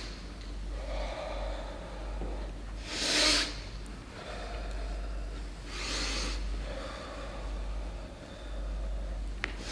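A man's forceful breaths as he moves through slow martial-art movements: a sharp breath about every three seconds, the loudest about three seconds in, with softer breaths between. This is breath-zikr ("hu") done without voicing the words.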